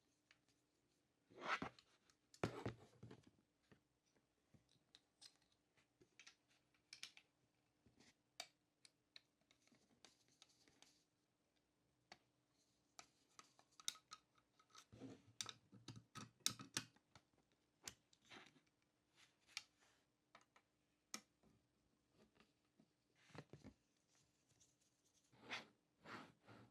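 Faint, irregular clicks and short scrapes of a 1:18 scale model car's small parts being handled, with louder clusters of handling noise near the start, in the middle and near the end.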